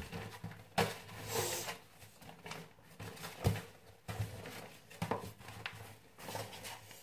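Handling noise as things are put away: scattered light knocks and taps, with a brief rustle about a second in.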